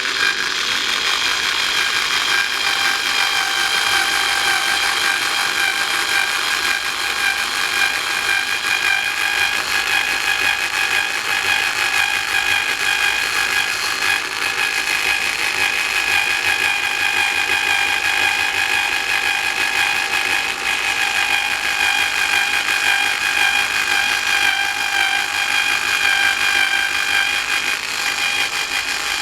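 Black & Decker AA-battery power screwdriver running continuously with a steady whine while drilling into ABS plastic. It runs on its worn AA batteries, which the owner blames for its slow progress.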